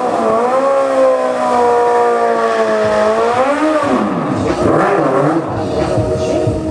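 2008 Suzuki Hayabusa's inline-four engine held high in the revs during a burnout, its pitch wavering and then rising about three seconds in. It then turns rougher and noisier before settling back to a steady high rev near the end.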